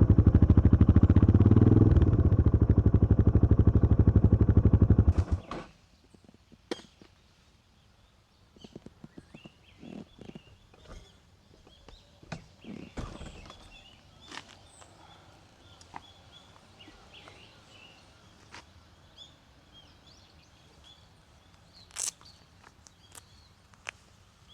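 Yamaha XT225 Serow's air-cooled single-cylinder four-stroke engine idling, then switched off about five seconds in, cutting out suddenly. Afterwards a few scattered clicks and knocks and faint bird chirps.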